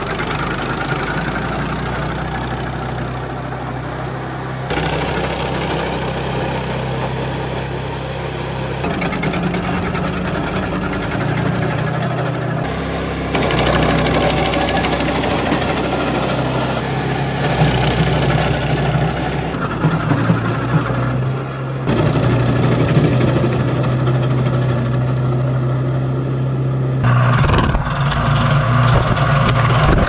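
Small petrol-engine wood chipper running under load, chipping green leafy branches as they are fed in. The engine note stays steady and shifts abruptly several times as the footage cuts between shots.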